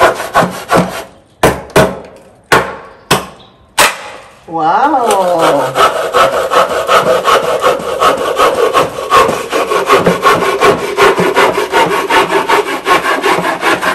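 Hand saw cutting through a wooden plank: a few separate, spaced strokes for the first four seconds or so, then fast, even back-and-forth strokes with a steady ringing tone under them.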